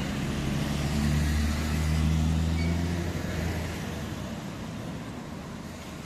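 A motor vehicle driving past, its low engine hum swelling within the first second, loudest about two seconds in, and fading away by about the fifth second, over steady traffic noise.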